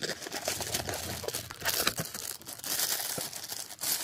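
Plastic packaging crinkling and rustling in irregular handfuls as a bulb in a clear plastic bag is pulled out of its cardboard box and handled, with a few small clicks.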